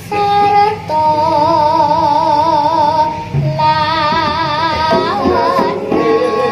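Sinden, a female Javanese vocalist, singing into a microphone over a PA: long held notes with wide, even vibrato in phrases, with a short break about halfway through.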